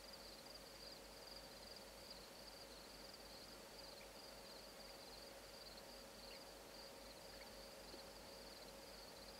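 Near silence: a faint, steady, rapidly pulsing insect trill, with a faint steady hum underneath.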